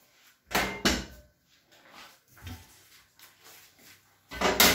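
Metal pan-support grates clanking as they are set down onto a gas cooker's enamel hob: two sharp knocks within the first second, a few softer knocks, then a louder clatter near the end.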